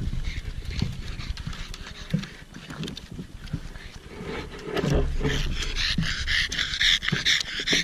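Pug panting quickly and rhythmically as it walks. The panting sets in about five seconds in and becomes the loudest sound. Before that, footsteps knock on the wooden boardwalk and wind rumbles on the microphone.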